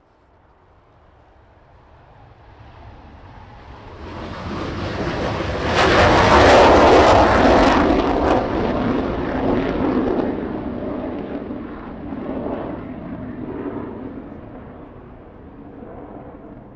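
Panavia Tornado's twin RB199 turbofans on full afterburner during take-off: the noise builds as the jet passes, peaks with a harsh crackle about six seconds in, then fades slowly, surging a little, as it climbs away.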